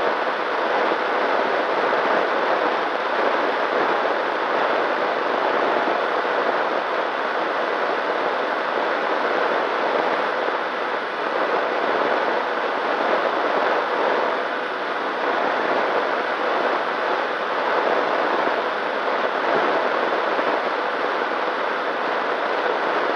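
Onboard audio of a ZOHD Nano Talon FPV plane in flight: a steady rush of air and propeller noise, with a faint steady whine from its electric pusher motor.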